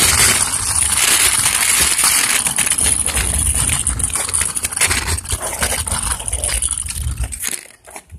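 Handling noise from a phone carried on the move: loud, continuous rubbing and scraping on the microphone, dropping off sharply near the end.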